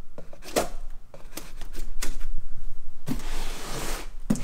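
Cardboard shipping boxes being handled: a few sharp knocks, then about two seconds of rasping, scraping noise as a box is worked open.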